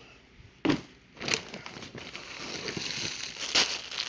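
Clear plastic packaging around a scarf crinkling as it is picked up and handled, after a single short rustle less than a second in.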